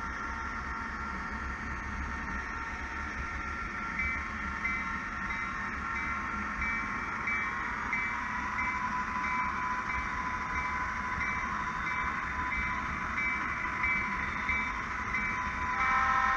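Diesel freight locomotive sounds: a steady engine drone, with a bell ringing about twice a second from about four seconds in. A horn sounds just before the end.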